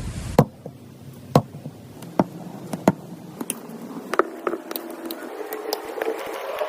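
Squishy dough being squeezed and mixed by hand, with sharp sticky clicks and pops at irregular intervals. From about four seconds in, a tone rising in steps joins them.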